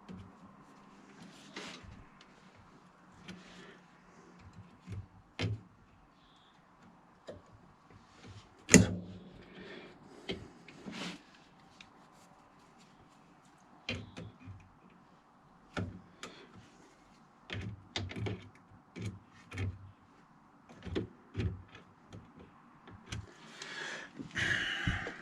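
Hand tools and metal parts being handled on an ATV's front drive shaft during reassembly. Scattered clicks and knocks, with one sharp, loud knock about nine seconds in and a run of short clunks later on.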